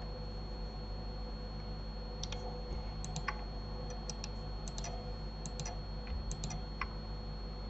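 Computer mouse buttons and keyboard keys clicking while working in Blender. The clicks start about two seconds in and come irregularly, singly and in quick pairs, over a steady low hum.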